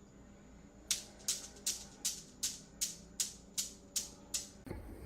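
About ten evenly spaced rasping, shaker-like strokes, roughly three a second, each fading quickly, starting about a second in and stopping shortly before the end.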